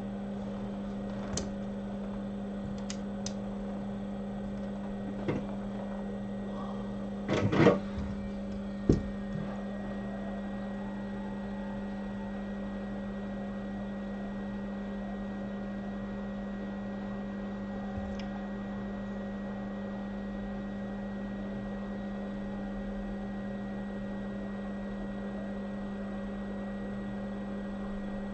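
Steady electric hum from workbench equipment, with a few light clicks and knocks, the loudest cluster about seven seconds in.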